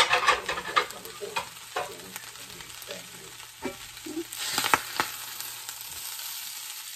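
Metal spatula scraping and clicking against a cast iron skillet as food is scooped out, over a light sizzle of the food still frying in the hot pan. The sharp scrapes and clicks come in a run over the first couple of seconds and again about four to five seconds in.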